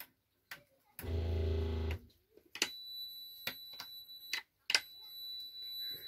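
Sharp switch clicks in a camping car's 12 V electrical system, a low electrical buzz lasting about a second, then a steady high-pitched electronic whine with more clicks. The system keeps cutting out when the lights are switched on from the solar battery, which the owner blames on the battery protect going into safety.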